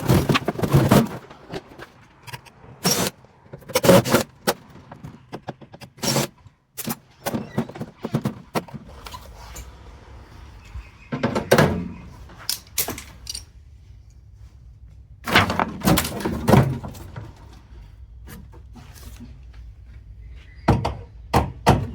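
Irregular knocks and thunks in clusters a few seconds apart as the metal casing and parts of a Rheem continuous-flow gas water heater are handled and pulled about during dismantling. A faint low hum comes in about halfway.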